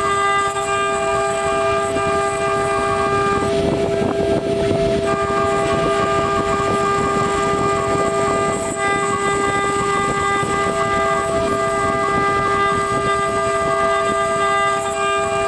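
Spindle of a small CNC engraving router running with a steady whine while its cutter engraves brass, over a gritty cutting noise. The higher tones of the whine change briefly about four seconds in.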